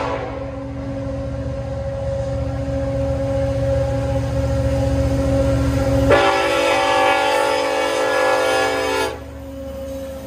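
Norfolk Southern SD70ACe diesel locomotive approaching a grade crossing: the deep rumble of its engine grows as it nears, then its horn sounds one long blast of about three seconds starting about six seconds in. A previous horn blast cuts off just at the start.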